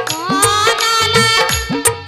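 Bundeli devotional folk song music: a gliding, ornamented melody line over a steady hand-drum rhythm whose bass strokes bend in pitch.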